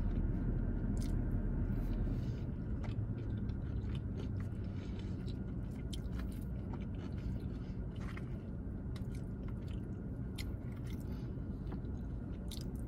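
A person chewing mouthfuls of a salad bowl of greens, falafel and grain, with wet mouth sounds and scattered soft clicks. A low steady hum runs underneath, its deepest part dropping away about two seconds in.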